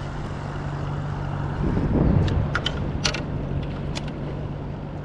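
Steady wind and water noise on the microphone with a low hum under it. A louder low rumble comes about two seconds in, followed by a few sharp clicks and taps.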